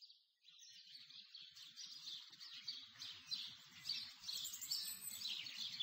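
Faint birdsong, many quick chirps, fading in from nothing and growing steadily louder.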